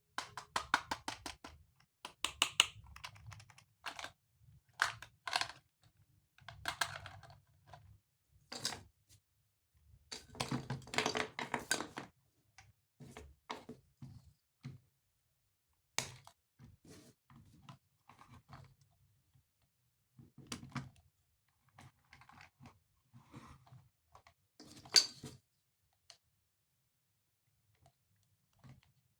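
Hands handling a toy and its packaging: irregular clicks, taps and rustling in short clusters, with quiet gaps between, including a busier stretch of rustling about ten to twelve seconds in.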